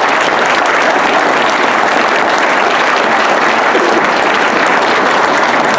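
Audience applauding: a loud, steady spell of clapping from a roomful of people.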